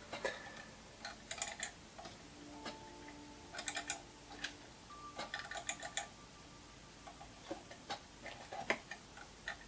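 Computer mouse buttons clicking in short quick clusters: double-clicks opening Workbench icons, a few times over the stretch. Faint steady tones sound between about three and seven seconds in.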